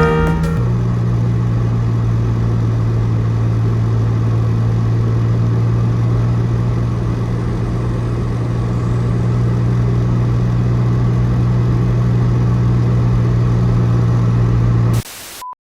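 A steady low mechanical hum, like an engine idling. It cuts off suddenly near the end and is followed by a short single beep.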